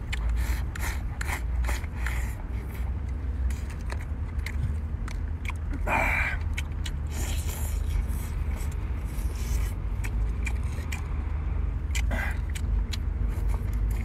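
Close-up eating sounds of a man working through seafood: chewing, sucking and slurping, with many small clicks, over a steady low rumble. There is a louder slurp about six seconds in.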